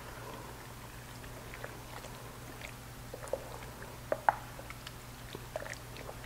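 Wooden spoon stirring a thick, wet ground beef and tomato mixture in a slow cooker crock: soft squelches with scattered light clicks of the spoon against the pot, and two sharper knocks a little after four seconds in.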